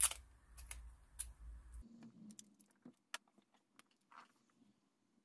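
Masking tape being torn and pressed down to hold a sheet of paper: a loud click at the start, a few sharp clicks and rustles over the next second or so, then scattered small clicks fading out near the end.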